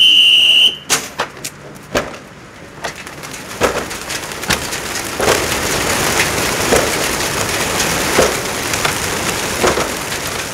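A short high tone, then a flock of racing pigeons released all at once from a pigeon transport truck's basket hatches: a dense clatter of wingbeats with repeated sharp knocks from the hatches and crates.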